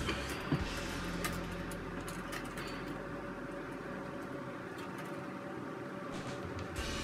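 Light handling of loose electrical wires: a few small clicks and rustles near the start, over a steady low room hum.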